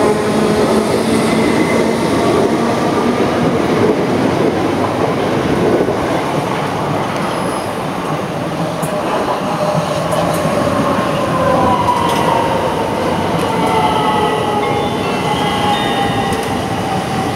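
Electric multiple-unit trains running at a station platform: a steady rumble of wheels on rail, with a motor whine that falls slowly in pitch through the second half as a train draws alongside.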